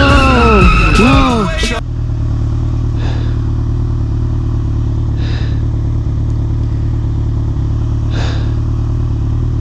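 A loud burst of music with swooping pitch glides cuts off about two seconds in, leaving a motorcycle engine running steadily at low revs as the bike rolls slowly.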